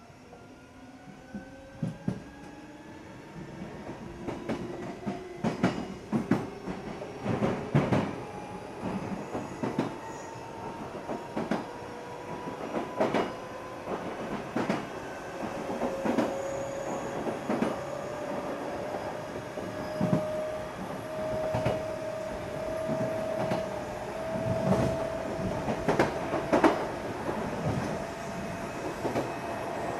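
Odakyu 8000-series electric train (car 8109, field-chopper control) under way. Its traction motor and gear whine rises steadily in pitch as it gathers speed, then levels off about two-thirds of the way through. The wheels clack repeatedly over the joints of jointed rail.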